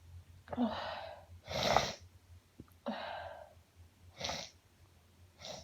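A woman in a sneezing fit: gasping wind-up breaths, each followed by a sharp sneeze, with three sneezes in all and the loudest about a second and a half in.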